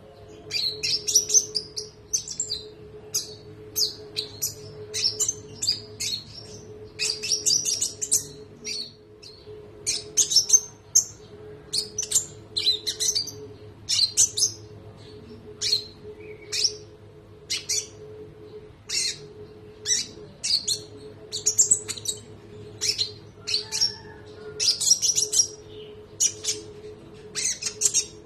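Konin songbird singing: a long run of short, sharp, high chirps and quick trills, repeated every second or so with brief gaps. A steady low hum runs underneath.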